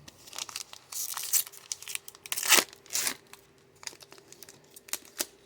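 Plastic trading-card pack wrapper crinkling and tearing in a series of sharp rustles, loudest about two and a half seconds in: a pack of football cards being torn open.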